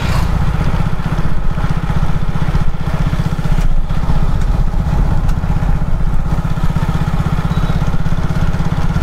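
Motorcycle engine running steadily while the bike is ridden along a road, with no revving up or down.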